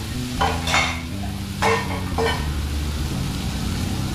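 Stirring in a frying pan: four short scrapes in the first two and a half seconds, over a low sizzle as a sauté of garlic, onion, tomato and smoked fish cooks with a little water just added.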